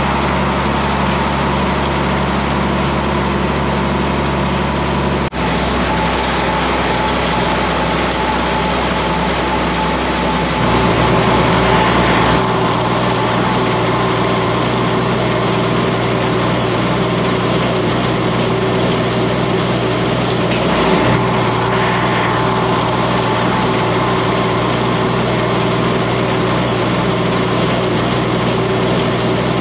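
John Deere tractor engine running steadily under load, pulling a hay wheel rake, "purring like a kitten". There is a brief break about five seconds in, and the engine note shifts slightly a few seconds later.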